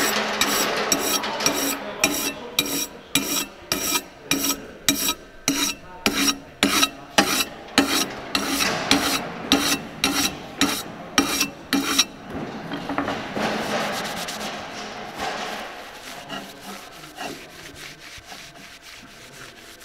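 Scrubbing the surface of a steel rocket-engine liner by hand with an abrasive, in quick back-and-forth strokes of a little over two a second, taking off a powdery coat left by tempering in the oven. After about twelve seconds the strokes turn into softer rubbing that fades away.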